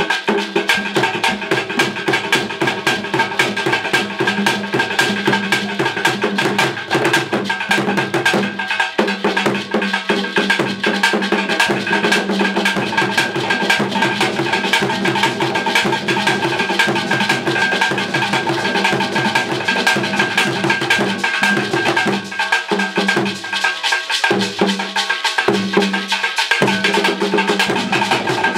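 Traditional Akan drum ensemble: skin-headed hand drums struck with bare hands in a fast, steady rhythm, with a steady high tone running through it. The deep drum strokes drop out briefly a few times about three-quarters of the way through.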